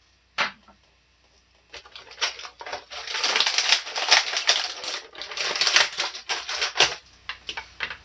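Hard plastic handled close to the microphone: a sharp click, then a few seconds of dense clicking and crinkling that tails off into scattered clicks near the end.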